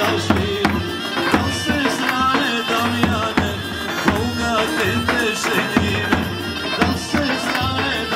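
Live Balkan folk music: a saxophone playing an ornamented, wavering melody over the steady beat of a tapan, a large double-headed bass drum struck with a stick.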